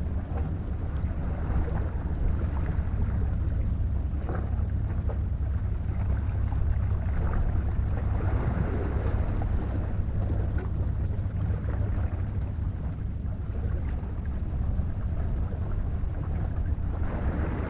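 Steady wind rumble on the microphone at the sea's edge, with a rushing wash of sea noise over it.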